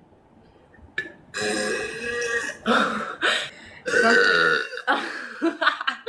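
A young woman burping loudly: a long drawn-out burp starting about a second and a half in, followed by several more burps in quick succession.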